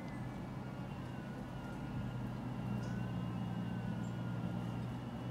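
A faint, long wavering wail over a steady low hum that grows slightly louder about two seconds in.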